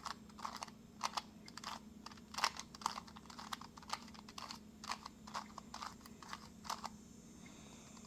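Plastic clicks and clacks of a 2x2 Rubik's cube turned quickly through an algorithm: a string of irregular turns, about two or three a second, that stops about a second before the end.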